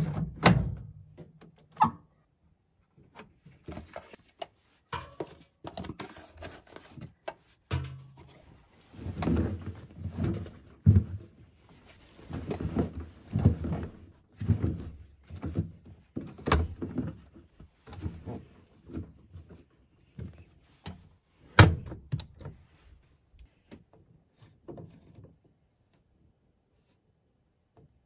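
Hands working a front-loading washing machine: the plastic detergent drawer is clicked shut, then an irregular stretch of rustling and soft knocks as clothes are pushed into the drum. One sharp thunk, the loudest sound, comes about two-thirds of the way through, and the last few seconds are nearly quiet.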